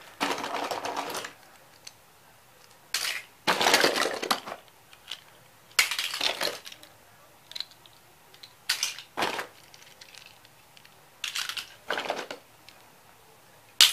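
Die-cast toy cars clinking and clattering against each other as a hand rummages through a cardboard box full of them, in short bursts every couple of seconds.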